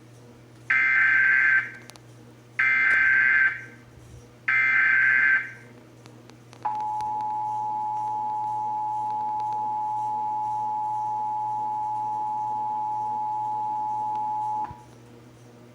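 Emergency Alert System test alert opening: the SAME digital header sent as three short data bursts of about a second each, then the EAS two-tone attention signal held steady for about eight seconds before cutting off. This is the start of a Required Monthly Test.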